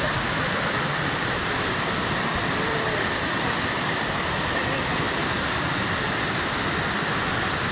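Waterfall water rushing steadily: an even, unbroken noise at one level throughout.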